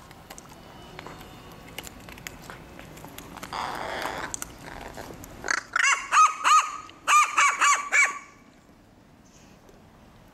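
Crow giving two quick runs of about four short, clipped "wan wan" calls each: the crow's imitation of a dog's bark. Light clicks of the dog chewing a wooden stick sound underneath before the calls.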